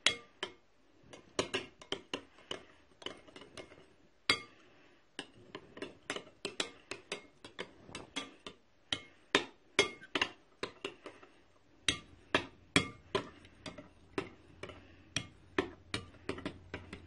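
A spoon knocking and clicking against a bowl as glue and borax water are stirred into slime. The knocks come unevenly, several a second.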